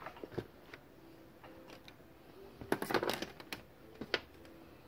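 Scattered light clicks and knocks of handling as a multimeter and its test leads are picked up and moved over the TV's metal chassis. There is a quick cluster of clicks about three seconds in and a single sharper knock about a second later.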